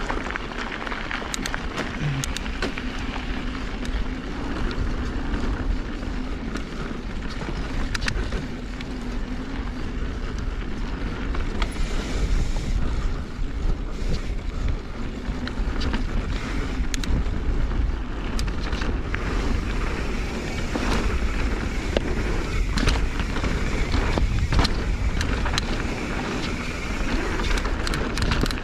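Mountain bike riding down a dirt and gravel trail: wind rushes over the microphone while the tyres roll over the dirt, with frequent short clicks and rattles from the bike and trail.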